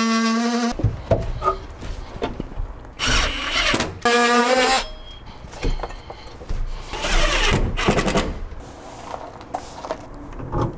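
Power drill running in several short bursts of about a second each, with a steady whine, and tool handling and scraping noises between the bursts.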